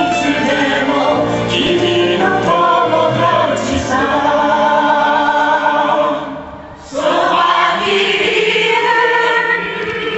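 Show music with a choir singing a melodic song over instrumental accompaniment, with a brief dip in level about six seconds in before it picks up again.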